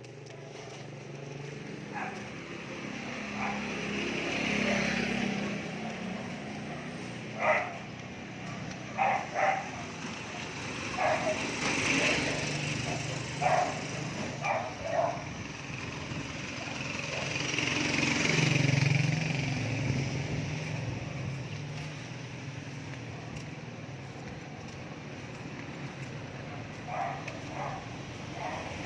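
Small motor-vehicle engines running and passing, swelling and fading twice, with a dog barking about a dozen times, most of it through the middle and a few more near the end.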